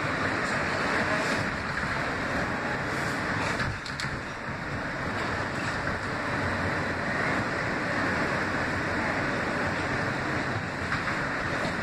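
Kawasaki R160B subway car running at speed, heard from inside the car: a steady rush of wheel and rail noise.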